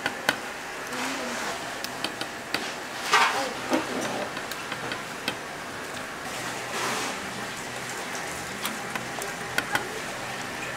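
Handmade fish cakes frying in hot oil: a steady sizzle with scattered sharp clicks and taps.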